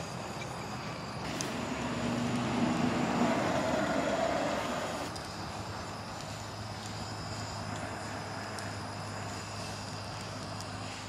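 A motor vehicle going by, its engine noise swelling for a few seconds and then fading, after which a steady low engine hum carries on.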